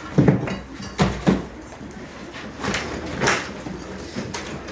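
Irregular heavy knocks and thuds of gypsum-block walls being broken down, about six strikes spread unevenly, the loudest near the start and about three seconds in.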